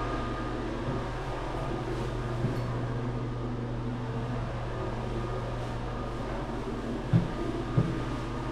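Steady mechanical hum of a running motor, with two short low thumps near the end.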